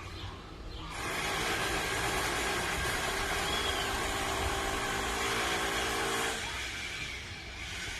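Electric demolition hammer running in one continuous burst, starting about a second in and cutting off a little after six seconds.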